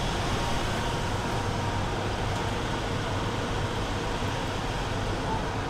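Steady hum of air-conditioning units mixed with street traffic, with no single sound standing out.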